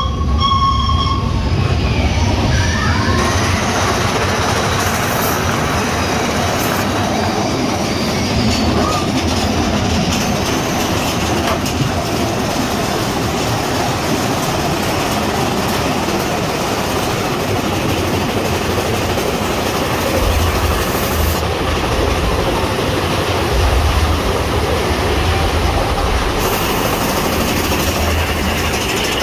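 Big Thunder Mountain Railroad mine-train coaster running on its track through a rock tunnel: a steady clatter and rumble of the train's wheels, with some squealing.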